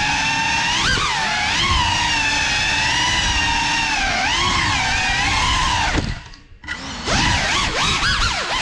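Geprc Cinelog 35 cinewhoop's brushless motors and ducted propellers whining, the pitch rising and falling with the throttle. About six seconds in, the whine drops away for under a second as the throttle is cut, then the motors spool back up with quick swoops in pitch.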